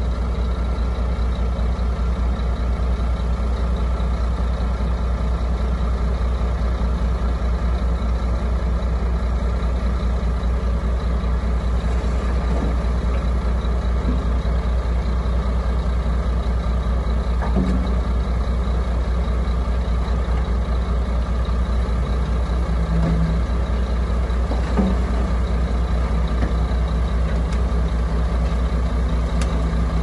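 Heavy diesel engines of a LiuGong crawler bulldozer and a dump truck running steadily while the truck raises its tipper bed. A steady low hum joins about two-thirds of the way through and holds to the end.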